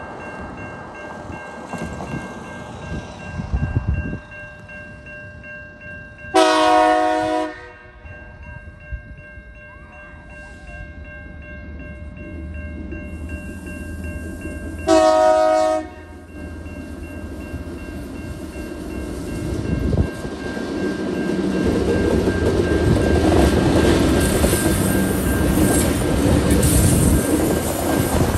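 TasRail TR-class diesel locomotive horn sounded in two loud blasts about eight seconds apart, over a steady level-crossing warning tone. From about twenty seconds in, the rumble of the diesel locomotives builds as the train comes through the crossing.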